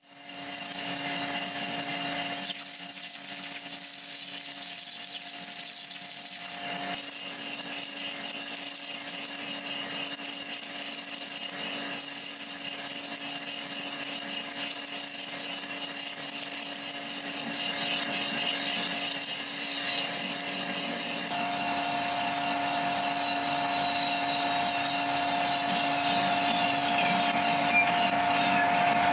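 Colchester 1800 lathe turning slowly at 70 RPM while a TiAlN-coated parting insert cuts through thick-walled 6082 aluminium tube: a steady machine hum with a high cutting noise on top. The tone shifts about 7 s in and again about 21 s in, and it grows a little louder toward the end.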